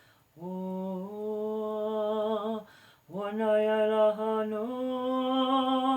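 A single voice chanting light-language syllables in two long held notes, the second stepping up in pitch partway through.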